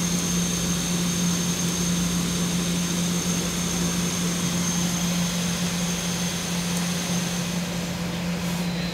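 CNC turning-center spindle at 764 rpm, drilling titanium 6Al-4V with a 0.875-inch Kennametal inserted drill under flood coolant spray. A steady machine drone with a constant low hum and a thin high tone that stops shortly before the end.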